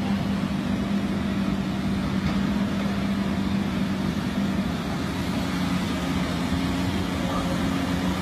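Heavy excavator diesel engines running steadily, a low drone whose pitch shifts slightly about halfway through.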